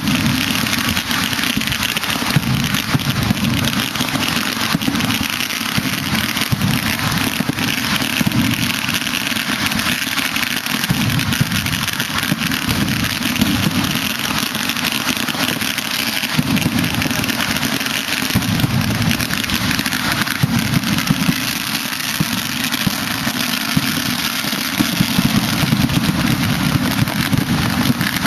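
A dense, unbroken barrage of fireworks crackling, with many sharp bangs over a rolling low rumble.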